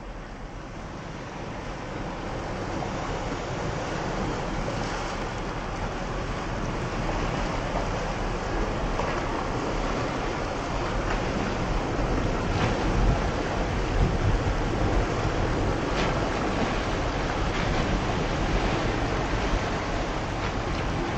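Small passenger ferry's engines and churning propeller wash as it comes alongside a landing stage, a steady rushing noise that builds over the first few seconds as it draws close, with wind on the microphone.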